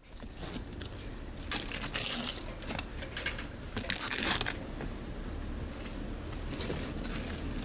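Rough scraping and crinkling from hand work on the roof's underlayment patch, with a few sharp clicks; the loudest scrapes come about two seconds in and again about four seconds in, over a steady low background rumble.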